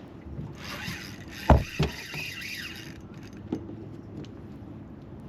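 Gear being handled in a small fishing boat: a scraping rattle lasting about two and a half seconds, with two sharp knocks about a second and a half in, then quieter with a few light clicks.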